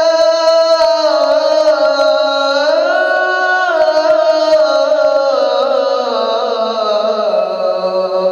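Muezzin's voice singing the azan (Islamic call to prayer), drawing out 'ḥayya ʿala ṣ-ṣalāh' as one long ornamented phrase. The pitch wavers, rises about three seconds in, then sinks slowly toward the end.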